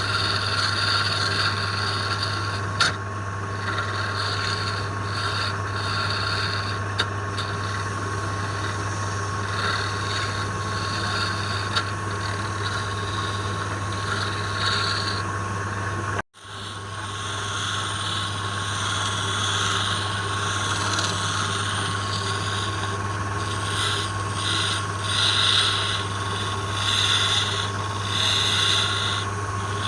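Wood lathe running with a steady motor hum and whine, while a tool rubs and scrapes irregularly against the spinning wood. The sound cuts out for a split second about halfway through.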